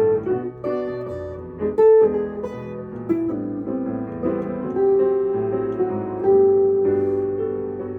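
Piano and a second instrument playing together: a continuous run of struck notes, some held and ringing.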